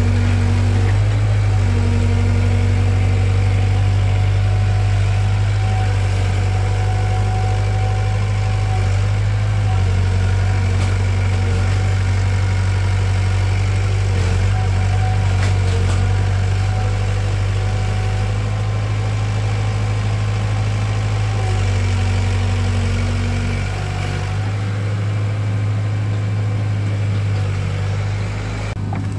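Excavator's diesel engine running loudly at a steady speed.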